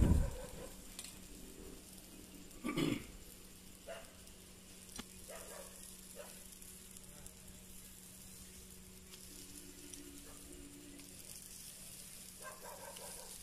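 Parotta dough frying on an oiled flat griddle: a faint, steady sizzle, with a brief louder sound about three seconds in.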